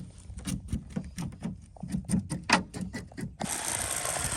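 Fish being cleaned with a blade: a run of short, irregular scraping and cutting strokes. About three and a half seconds in, a steady hiss begins abruptly.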